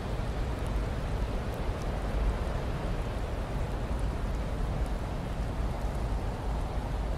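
Snowstorm wind blowing in a steady, deep rush of noise, with a few faint ticks on top.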